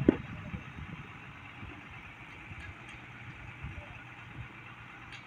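A sharp knock, then a steady low engine hum, like a motor idling.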